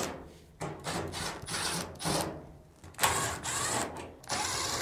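Power drill/driver backing out screws from a dryer's front drum assembly: the motor whirs in about five short bursts, one screw after another.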